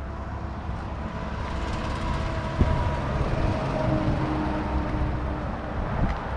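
Road traffic going by: a steady rumble with faint engine tones, and a single sharp knock about two and a half seconds in.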